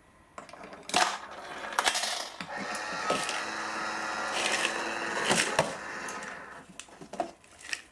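Coins clinking into a tabletop Cup Noodle home vending machine, then its dispensing mechanism runs for about four seconds with a steady whir and several knocks as a cup drops into the pick-up tray. Near the end come a few short clatters as the cup is slid out of the tray.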